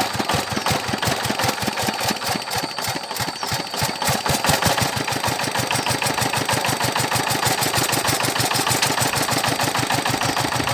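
Single-cylinder diesel engine of a two-wheel walking tractor chugging steadily as it pulls a loaded cart, with fast, even firing pulses. It gets a little louder about halfway through.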